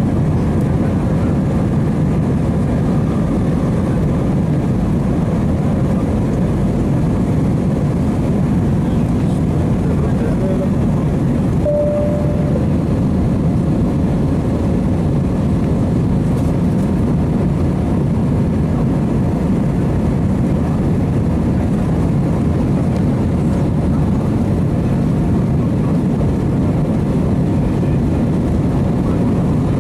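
Steady jet noise inside the cabin of an Airbus A319-131 in flight: the even, low rush of its IAE V2500 engines and airflow over the fuselage. A brief faint tone sounds about twelve seconds in.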